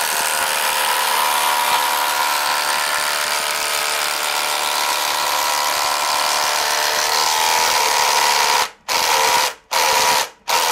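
A compact cordless impact driver hammering steadily as it drives a long screw into a timber beam. Near the end it switches to three short trigger bursts while the screw struggles to pull tight and flush.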